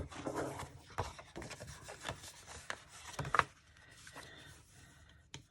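Folded cardstock being burnished along its score line with the hard end of a tool, a dry scraping rub with a few light knocks, strongest in the first three and a half seconds and fainter after.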